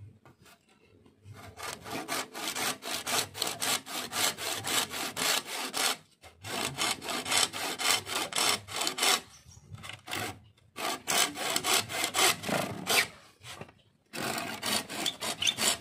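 Restored hand saw cutting through a green bamboo pole in quick back-and-forth strokes, with a few brief pauses.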